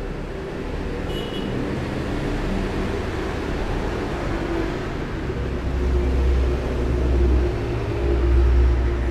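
Road traffic rumbling steadily, with the low rumble growing louder from about halfway through.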